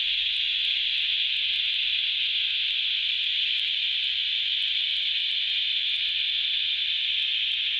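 Insect chorus: one steady, high-pitched shrill that neither rises nor falls.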